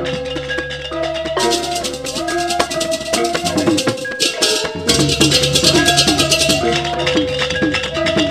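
Balinese gamelan playing a bebarongan piece: bronze metallophones ring out a melody over a low gong drone, and fast clashing ceng-ceng cymbals come in about a second and a half in.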